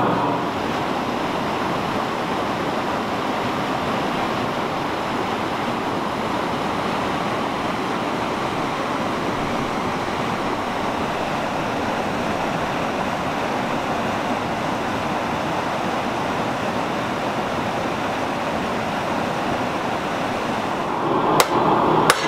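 Stream water rushing steadily over rocks. Near the end, a couple of hammer blows ring out on hot 52100 steel on an anvil.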